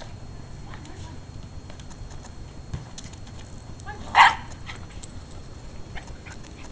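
Rat terrier gives a single short bark about four seconds in, over a low rumble and scattered faint clicks.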